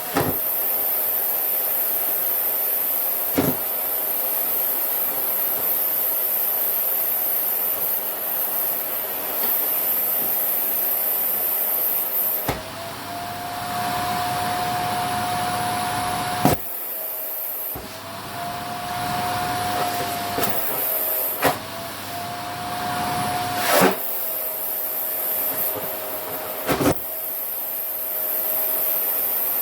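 Vacuum cleaner running steadily while it sucks on a down jacket. Its whine rises a little in pitch three times in the second half, for a few seconds each, and there are several short knocks.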